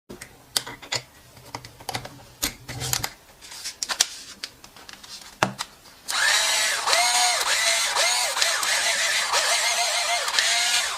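Cordless drill/driver (EZ6225) handled with a series of clicks and knocks, then its motor running for about five seconds from about six seconds in, the pitch repeatedly rising and dropping as the trigger is squeezed and eased.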